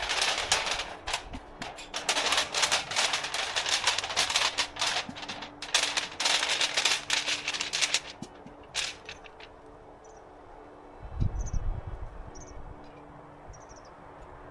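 Dry wood crackling and snapping in a rapid, dense run of sharp cracks, stopping about eight seconds in. Then a few faint short high chirps and one low thud.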